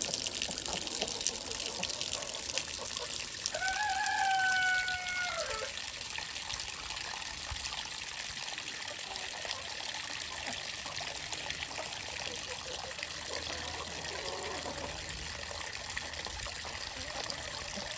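Water running and trickling steadily as the chickens' water is topped up. About four seconds in, a chicken gives one drawn-out call of about two seconds that drops in pitch at the end.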